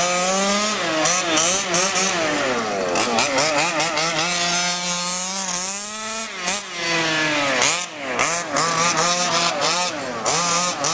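Small two-stroke gas engines of 1/5-scale HPI Baja RC cars, their pitch rising and falling rapidly with the throttle as they lap the dirt oval, and sweeping down as a car passes.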